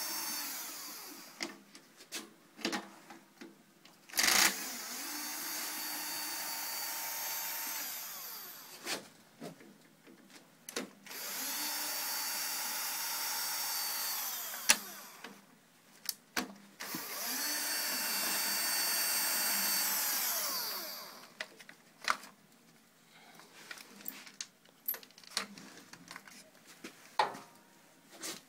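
Cordless drill-driver backing out screws: the motor whirs in runs of about four seconds, three full runs after one that ends about a second in, each spinning up and winding down. Short clicks and knocks of metal parts being handled come between the runs and through the last few seconds.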